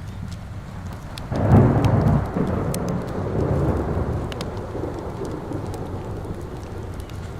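Steady rain falling, then a little over a second in a clap of thunder breaks and rolls as a deep rumble that fades slowly over the following seconds. Scattered sharp crackles of a wood fire sound over it.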